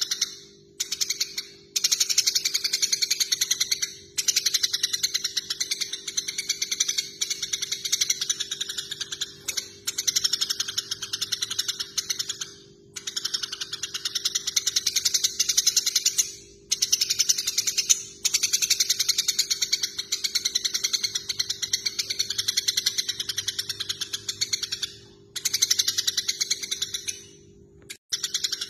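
Eurasian tree sparrows chattering in fast, harsh runs of chirps, the excited calling of sparrows fighting. The chatter comes in bouts of a few seconds with brief pauses between them.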